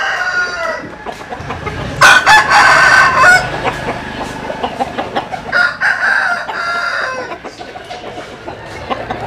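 Gà bướm roosters, a Vietnamese-American crossbred chicken, crowing. One crow trails off just after the start, a loud crow comes about two seconds in and another about five and a half seconds in, with clucking in between.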